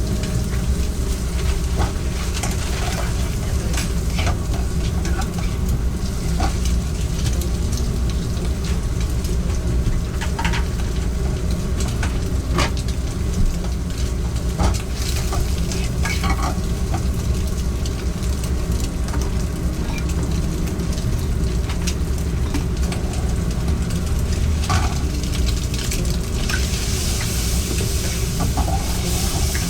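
Food sizzling as it is stir-fried in a pan, with scattered sharp clinks of utensils, over a steady low rumble.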